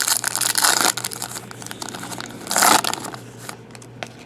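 Plastic trading-card pack wrapper crinkling as it is torn open and handled, in two loud bursts: one in the first second and a shorter one about two and a half seconds in.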